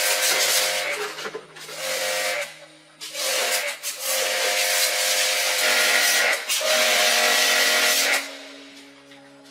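Power tool running in four bursts, a steady whine over a hissing rush, the last and longest burst stopping about eight seconds in.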